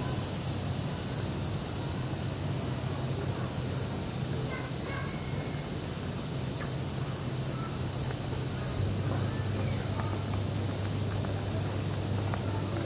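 Steady, high-pitched chorus of summer insects, with a low steady hum beneath it that drops slightly in pitch about nine seconds in.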